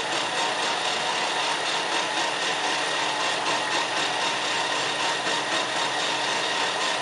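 Metal lathe running, with a boring bar cutting the gudgeon-pin bore in the small end of a connecting rod turning on the faceplate. The steady machine noise holds an even level throughout.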